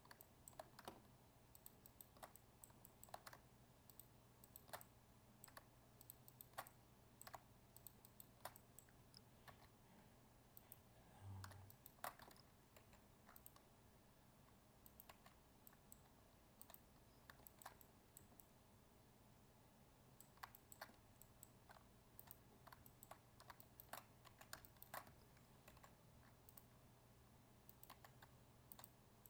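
Faint, irregular clicks of a computer keyboard and mouse as shortcuts are pressed and the mouse is clicked, over a steady low hum, with one soft low bump about eleven seconds in.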